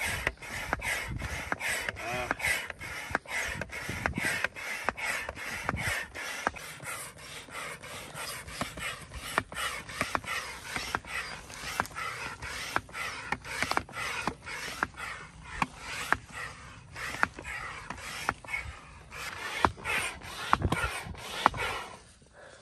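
Bedding and an air mattress being handled and laid out: a steady run of fabric rustling and rubbing, with many light irregular clicks and knocks, dying down just before the end.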